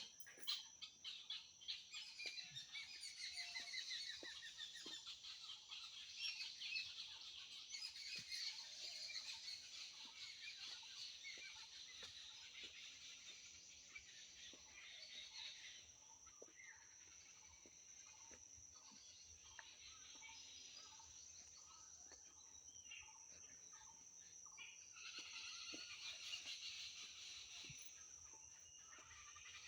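Faint chorus of many small birds chirping and trilling, busiest in the first half, thinning out after about sixteen seconds and picking up again near the end, over a steady high-pitched hum.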